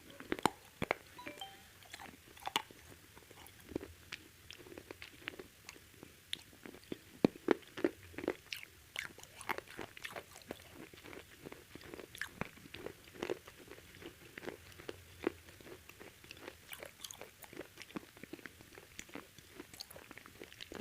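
Close-miked biting and chewing of crispy KFC fried chicken, with many irregular sharp crunches of the coating.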